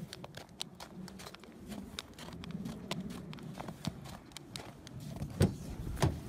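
Footsteps in snow: a run of irregular short clicks and scuffs. Near the end come two loud knocks as the car door is handled.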